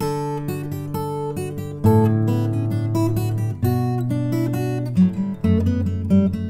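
Acoustic guitar playing strummed chords that change every second or two, picked up by a HyperX SoloCast USB condenser microphone with compression and EQ applied.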